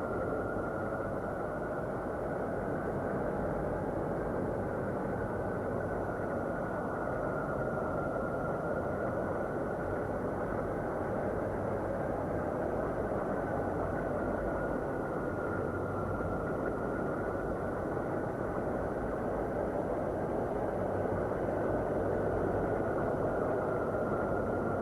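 Steady, dark rushing rumble with no distinct tones, its edge slowly wavering up and down: an ambient space drone presented as the sound of Saturn.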